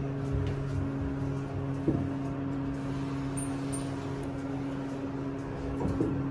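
A steady low machine hum, with a light knock about two seconds in and another near the end.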